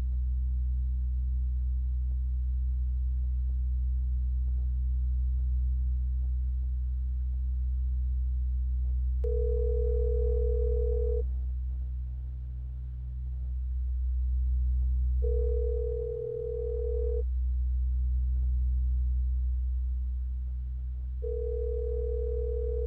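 A deep, steady electronic drone with a pure beep tone sounding three times, each about two seconds long and about six seconds apart.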